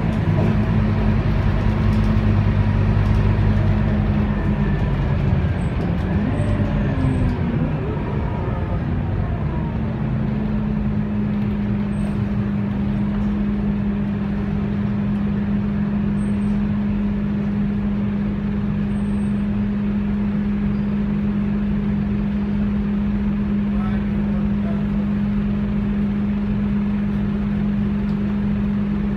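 Scania DC9 9.3-litre five-cylinder diesel of a city bus, heard from inside the cabin: running under way at first, its note dropping off about six to eight seconds in. From about ten seconds in it settles into a steady idling hum.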